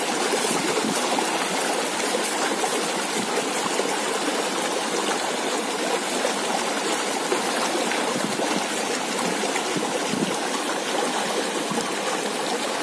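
Steady rush of a flowing stream, an even wash of water noise.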